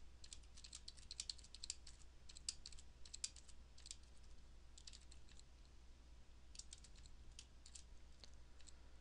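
Faint computer keyboard typing: quick runs of keystrokes with a pause of about a second a little past the middle.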